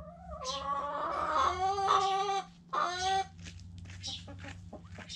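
Chicken calling: one long, drawn-out call of about two seconds, then a shorter call after a brief pause, followed by a few faint pecking clicks.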